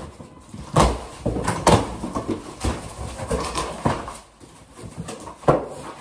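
Cardboard shipping box being opened by hand: flaps pulled up and folded back, cardboard scraping and rubbing, with a handful of sharp knocks as the box and flaps are handled.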